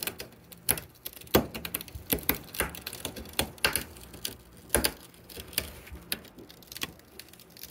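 Chain of a chain-type geode cracker clicking and creaking as it is drawn tighter around a geode, pressure building on the stone before it breaks. Irregular sharp clicks, a few louder ones about a second apart.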